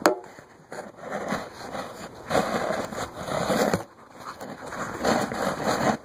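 Handling noise of a camera being set on a roll of shop towels: a sharp knock, then uneven bursts of rustling and scraping.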